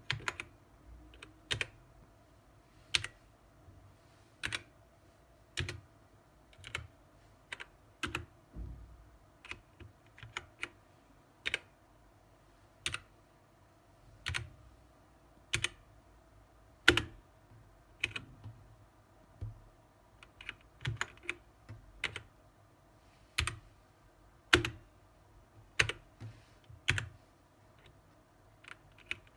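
BlitzWolf BW-KB1 mechanical keyboard with Gateron switches: keys pressed one at a time, a sharp clack roughly every second, now and then two in quick succession.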